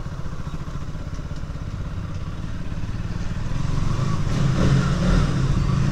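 KTM Duke 200's single-cylinder engine running at low road speed, getting steadily louder over the second half.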